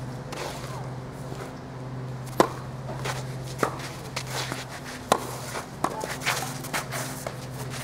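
A tennis rally: a ball struck by rackets, giving sharp hits about a second and a half apart that start roughly two and a half seconds in. Players' footsteps and shoe scuffs on the court come between the hits.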